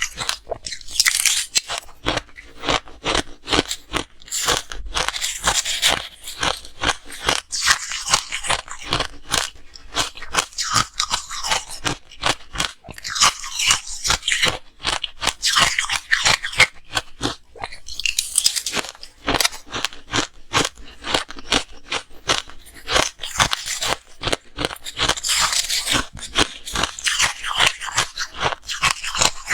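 Ice being bitten and chewed close to the microphone: dense, continuous crunching and cracking.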